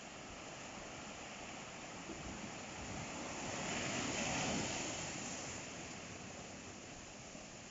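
Ocean surf: a wave breaks and washes in, swelling to its loudest about four seconds in and then fading back into the steady hiss of the sea.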